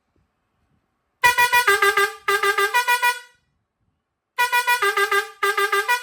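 Pioneairs 217S two-pipe steel-trumpet digital air horn playing a rapid stuttering tune of short toots, about eight a second, stepping between a few pitches. The loud phrase sounds about a second in, lasts about two seconds, and begins again after a pause of about a second.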